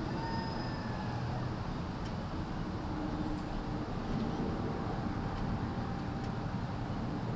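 Steady outdoor background noise with a low rumble like distant road traffic. A faint, thin call or tone rises above it briefly near the start.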